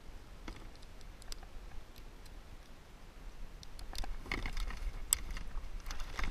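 Scattered small clicks and taps from fishing gear and the fish being handled against a kayak's hull. They get busier about four seconds in, over a low steady rumble.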